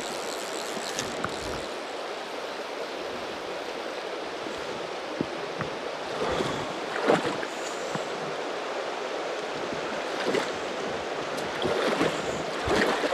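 Steady rush of flowing river water, with a few short splashes about six to seven seconds in, again around ten seconds, and near the end.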